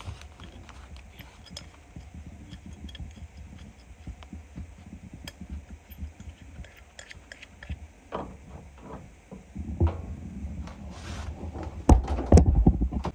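Light metallic clinks and taps of hand tools, including an adjustable wrench, working on a furnace's copper lines and sheet-metal cabinet, with a run of louder knocks and bumps near the end.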